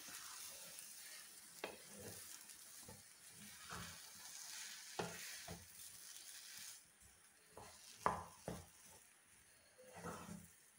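Wooden spatula stirring and pressing thick semolina upma in a nonstick pan, in irregular soft scrapes and light knocks against the pan. A faint hiss runs under it and stops about two-thirds of the way through.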